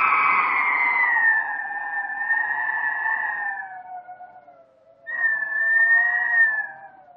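Howling wind sound effect: a pitched, whistling howl slowly falls in pitch and dies away about four seconds in. A second howl rises in about five seconds in, then falls and fades near the end.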